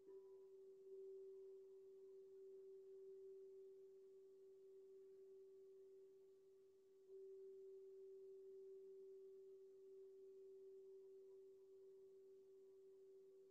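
Singing bowl ringing faintly with one steady low tone and a few fainter overtones, struck again about seven seconds in.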